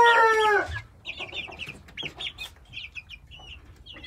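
A rooster's crow ending under a second in, its pitch falling as it stops. Then a flock of young game chickens peeping and clucking in short, high, quieter notes.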